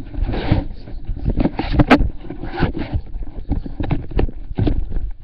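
Irregular knocks and thumps, a few a second, over rustling noise.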